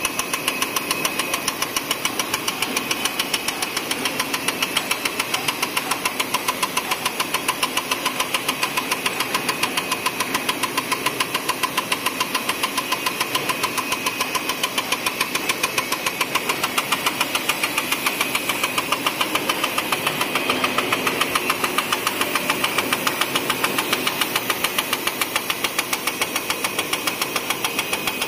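High-speed label die-cutting machine running, its flatbed die-cutting press stamping through the printed label web in a fast, even rhythm of knocks, several a second, over a steady mechanical hum.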